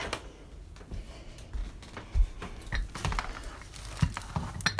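Handling noise from a phone being carried while walking: scattered low thumps of footsteps, with rubbing and rustling of the phone against clothing.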